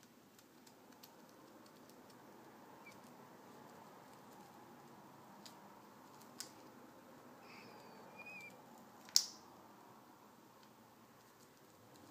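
A male eclectus parrot chewing a rope-and-plastic toy with its beak: faint crunching and nibbling, broken by scattered sharp clicks, the loudest about nine seconds in. Shortly before that loudest click come two short, soft squeaky notes.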